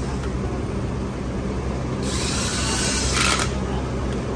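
A handheld power tool run against a car air-conditioning compressor, in one burst of about a second and a half starting about two seconds in, over a steady low hum.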